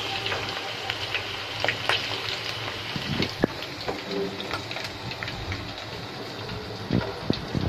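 Masala-coated prawns deep-frying in hot oil: a steady sizzle with scattered crackles and pops, and a few light clicks as a perforated steel skimmer lifts them out.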